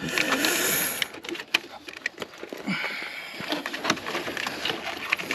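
Rustling and scattered small clicks as hands pull at a washer hose and the wiring harness it is taped to, with a longer rustle in the first second and another about three seconds in.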